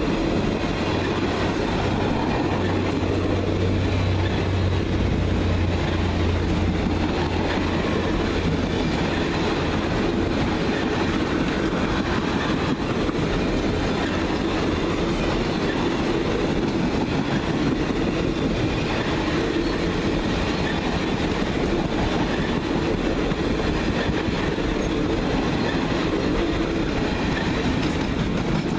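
Long train of steel passenger cars rolling steadily past, wheels running on the rails in an even, continuous noise.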